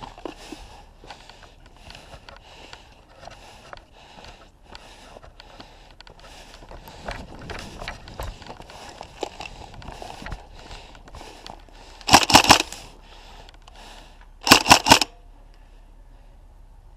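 Footsteps crunching on dirt at a steady pace, then near the end two short bursts of full-auto fire, about two seconds apart, from a Tokyo Marui High Cycle AUG airsoft electric gun.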